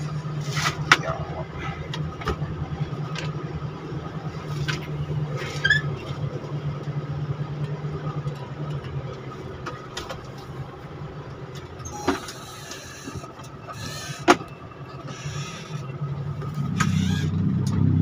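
A road vehicle's engine running steadily while driving through city streets, with a few sharp clicks and knocks scattered through it.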